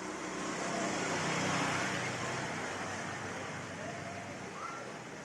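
Road traffic: a vehicle passing by, growing louder to about a second and a half in and then fading away.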